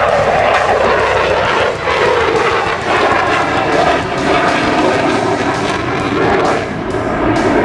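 F-22 Raptor's twin F119 afterburning turbofans, loud and continuous as the jet flies past during its airshow demonstration.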